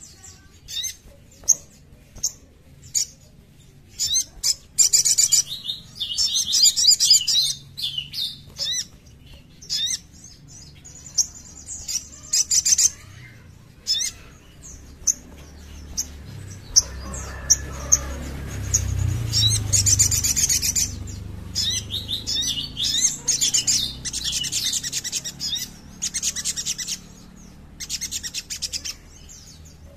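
Sogon (sogok ontong) bird singing: sharp high chirps and rapid, rattling trills in repeated bursts. A low rumble swells in the background about halfway through.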